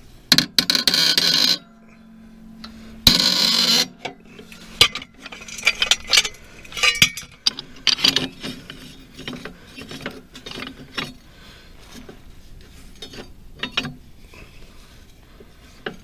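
Seized steel blade bolt on a mower-deck spindle being turned out with a wrench on a cheater pipe: two harsh grinding screeches, each about a second long, as the stuck threads give. After them comes a run of sharp metal clinks and knocks from the tools.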